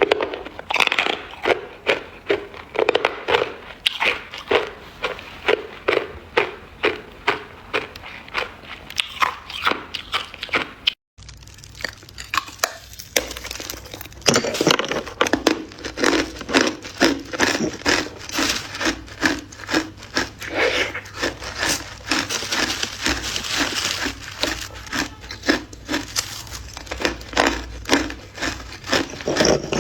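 Ice being chewed up close: a steady run of crunches, about two a second, with a brief cut about eleven seconds in.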